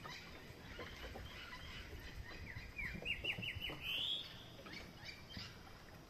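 A bird calling: a quick run of about six short notes stepping up in pitch, ending in one longer rising note, over faint scattered ticking.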